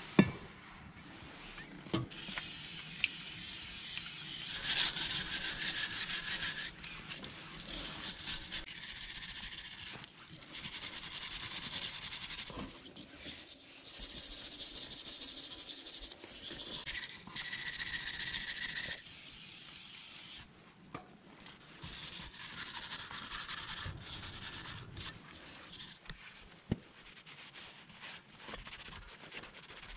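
Rusty wheel hub face being scrubbed clean, with bursts of quick scratchy back-and-forth strokes that start and stop repeatedly. A single knock sounds right at the start.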